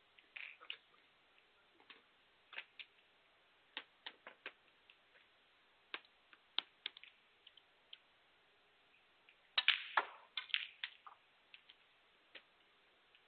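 Scattered sharp clicks and knocks in a quiet snooker arena, among them a cue tip striking the cue ball and the snooker balls knocking as the shot is played. A louder cluster of knocks comes about ten seconds in.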